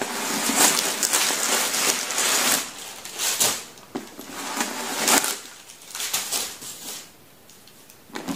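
Crumpled stuffing paper rustling and crinkling as it is handled and pulled out of a new tote bag. The rustling comes in several separate bursts and grows quieter near the end.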